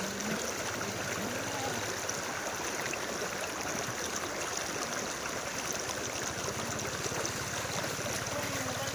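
Steady sloshing and swishing of floodwater as people wade through it knee-deep.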